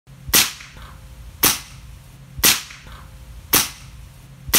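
Walther Parrus break-barrel air rifle firing, five sharp cracks about a second apart, each followed by a short echo. The shots of the rifle with and without its 3D-printed suppressor are cut together side by side.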